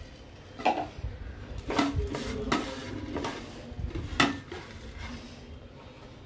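Crispy fried onions being crumbled by hand into a metal mixing bowl: a handful of sharp, irregular crunches and clinks against the bowl.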